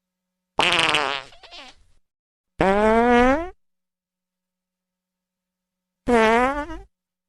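Three separate fart sounds with dead silence between them. The first, about half a second in, is pitched and trails off in a short sputter. The second is a steady pitched toot rising slightly over about a second, and the third, near the end, is shorter and wavering.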